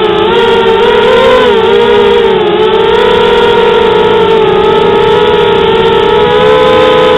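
FPV quadcopter's electric motors and propellers whining, loud and continuous, the pitch wavering up and down with the throttle and dipping most deeply about two and a half seconds in.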